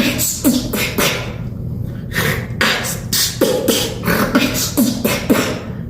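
A person beatboxing: a quick rhythm of mouth-made drum hits and hi-hat clicks with short voiced notes in between.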